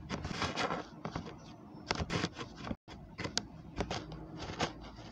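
Handling noise from a hair clipper's plastic attachments and its paper instruction sheet: irregular sharp clicks and taps with short bursts of rustling.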